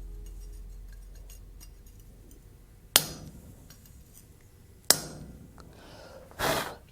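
Hammer striking a chisel against a steel ornament blank to cut a decorative line: two sharp ringing blows about two seconds apart, then a brief rougher sound near the end.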